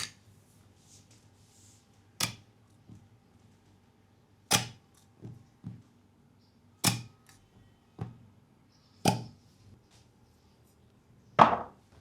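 Sharp slapping massage strikes on a leg, six loud ones about two seconds apart with fainter taps between; the last, near the end, is the loudest.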